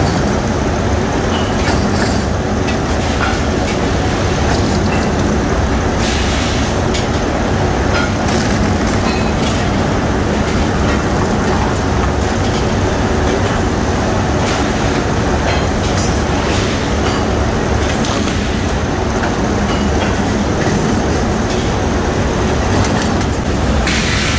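Hot steel rolling mill running: the roll stands and their drives give a steady, loud rumble and clatter, with sharp clanks now and then as red-hot bars pass through the rolls.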